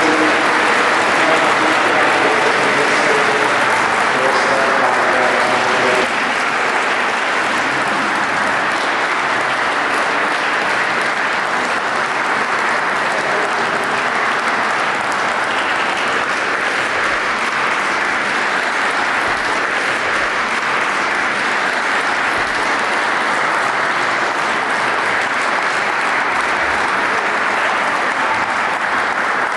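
Audience applauding steadily, with a few voices mixed in over the first few seconds. The applause drops a little in level about six seconds in, then carries on evenly.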